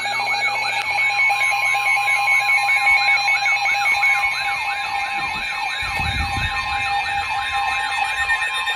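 Emergency alert attention tone: steady electronic tones with a fast, repeating siren-like warble sweeping over them, about three to four sweeps a second. A low rumble comes in briefly about six seconds in.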